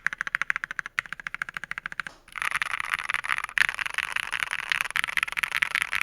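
Fast typing on an Ajazz AC081 mechanical keyboard with lubed Gateron Yellow linear switches: rapid separate keystrokes at first, then about two seconds in the keys run together into a dense, continuous clatter.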